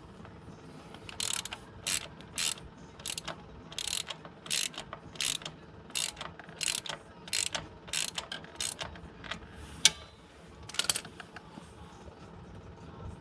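Socket ratchet worked in short repeated strokes, about two clicking swings a second, loosening the primary chain adjuster bolt; the strokes stop about 11 seconds in.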